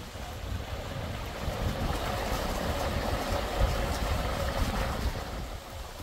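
Outdoor wind rumble on the microphone, with a rushing noise that swells about two seconds in and dies away near the end.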